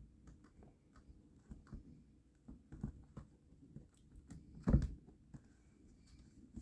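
Hard cast-resin box pieces being handled and fitted together: scattered light clicks and taps, with one louder knock about three-quarters of the way through.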